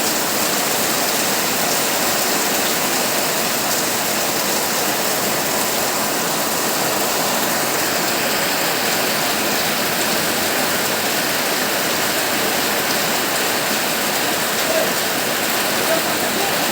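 Heavy rain pouring on a tin roof, a steady dense hiss with a couple of slightly louder drop hits near the end.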